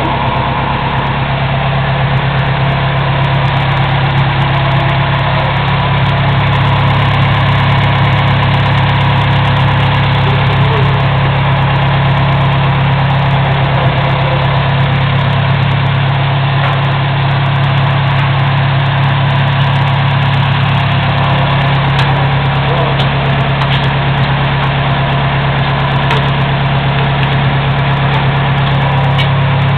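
Loud, steady low mechanical hum that holds unchanged throughout, with a few faint clicks.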